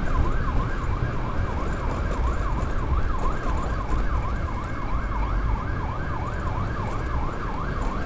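Escort motorcycle's Whelen electronic siren on a fast yelp, sweeping up and down about three times a second. A steady low rumble of wind and engine runs underneath.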